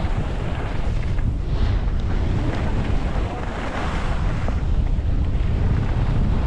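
Steady wind rumble buffeting a head-mounted GoPro's microphone while skiing downhill.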